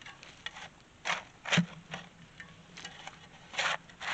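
Shovel digging into gravelly dirt: several short scraping strokes, with a sharp knock about a second and a half in.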